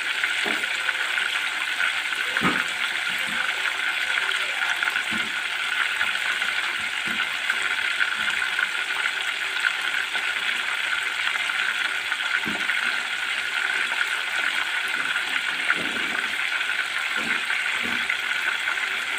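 Chicken deep-frying in hot oil: a steady sizzle, with a few light knocks now and then.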